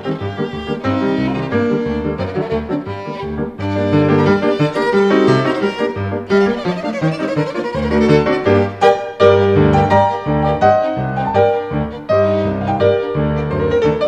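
Violin playing a melody over piano accompaniment.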